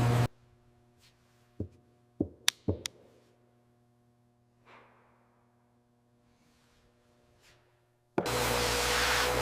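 Steady machine noise with a low hum cuts off just after the start. A faint hum remains, with a quick cluster of five sharp knocks and a soft swish. Then the steady noise comes back on suddenly near the end.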